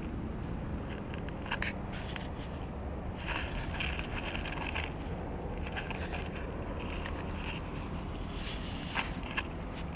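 Wind rumbling on a handheld action camera's microphone, with scattered scuffs and clicks of the camera being handled and one sharper click about nine seconds in.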